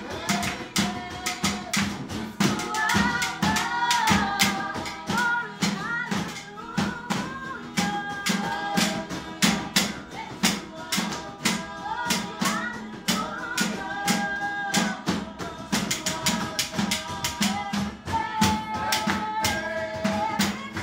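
Voices singing a gospel praise song to an acoustic guitar strummed in a quick rhythm, with a sharp, even beat of about four strokes a second.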